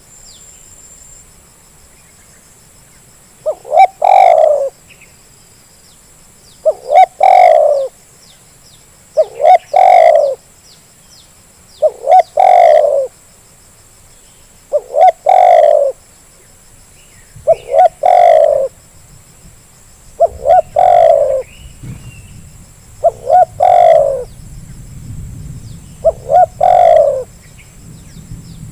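Spotted dove (terkukur) cooing, its short phrase of a few rolling notes repeated about every three seconds, nine times, starting a few seconds in. It is a lure recording meant to set off a reluctant dove to call.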